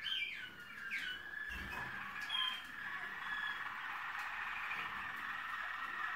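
Waterslager (Malinois) song canaries singing: falling glides in the first second, then a long unbroken rolling trill with a few short higher notes over it.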